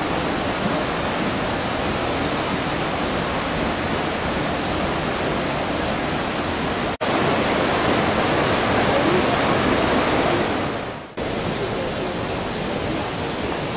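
Steady rushing, hissing noise, cut by two short dropouts about seven and eleven seconds in. After the second dropout the hiss is brighter.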